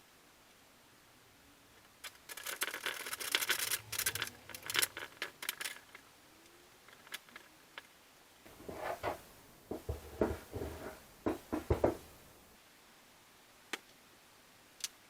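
Light clattering and clicking of things being handled, then a run of duller knocks and rustling, and two single sharp clicks near the end.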